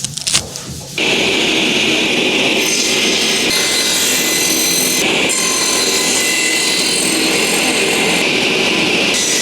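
An electric power tool starts about a second in and runs steadily, with a high whine over a loud hiss.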